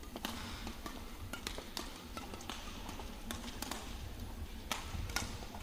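Badminton rally: rapid, irregular sharp clicks of rackets striking the shuttlecock back and forth, mixed with players' shoes tapping on the court.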